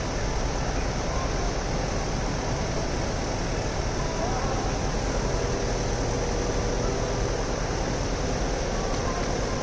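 Steady street ambience: a constant low mechanical hum with hiss, with no distinct events.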